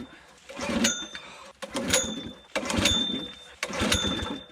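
Pneumatic pruning snips cutting, about one cut a second, four in all; each cut is a short sharp burst with a thin whistle of air.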